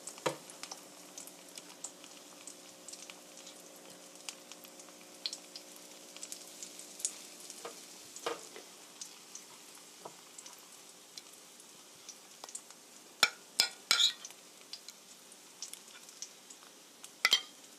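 Egg-dipped, meat-stuffed green chili peppers frying in oil in a frying pan, a steady sizzle with many small pops of spitting oil. Three sharp clicks of a utensil about thirteen to fourteen seconds in, and another near the end.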